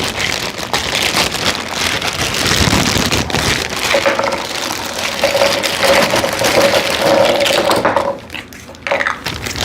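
Plastic packaging crinkling and rustling as it is torn open by hand: a dense, continuous crackle with many sharp crinkles.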